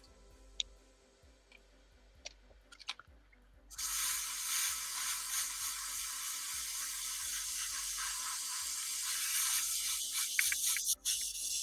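A few faint clicks and taps, then a steady hiss that starts abruptly about four seconds in and carries on.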